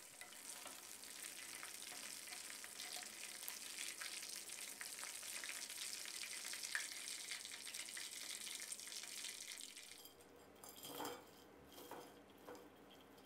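Chicken wings deep-frying in hot oil in a wok, a steady sizzle with a spatula stirring them. About ten seconds in the sizzle cuts off, and a few short knocks follow as the fried wings are tipped from a metal bowl onto a plate.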